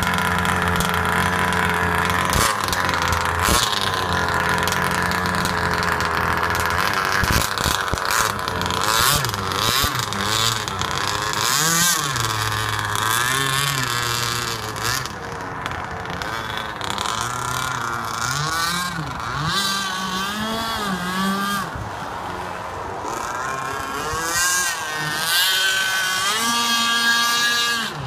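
26cc two-stroke petrol engine of a radio-controlled speedboat running, at a steady pitch for the first several seconds, then rising and falling again and again as the throttle is opened and closed.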